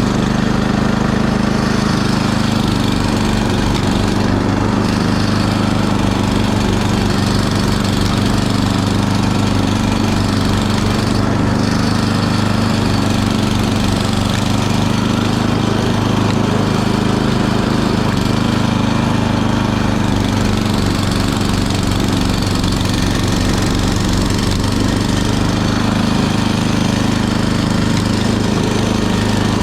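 Gasoline snow blower engine running steadily at a constant speed.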